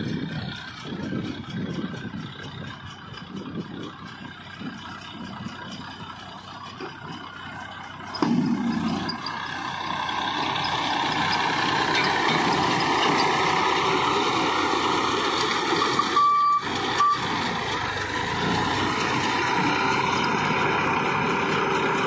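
Massey Ferguson 241's three-cylinder diesel tractor engine running under load as it pulls a mini round baler picking up straw, with the baler's working mechanism adding a steady whine. It is distant at first and then loud and close from about a third of the way in. Two short high beeps sound about three-quarters of the way through.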